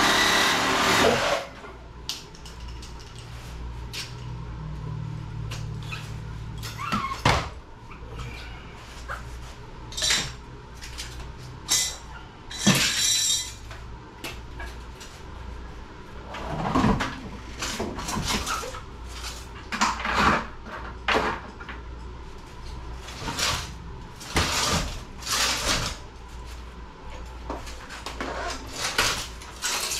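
A power tool cutting stops about a second in. Irregular clanks and knocks of tools and metal parts being handled follow, over a low steady hum.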